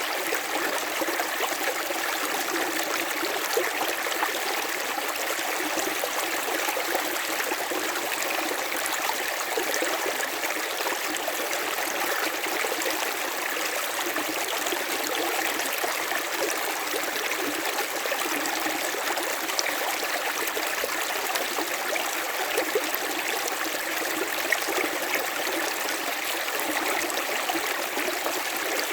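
River water running steadily over stones, a continuous babbling rush with fine splashes and little low rumble.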